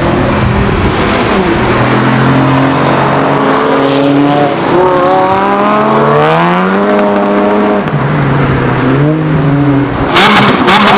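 Supercar engine revving and accelerating: its pitch holds, then climbs steadily and falls back at gear changes. About ten seconds in it cuts to a louder engine sound with rapid crackling pops.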